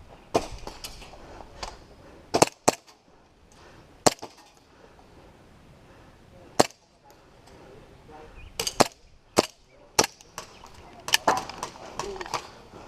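Airsoft guns firing: about a dozen sharp, light cracks at irregular intervals, some in quick pairs, with quiet gaps between them.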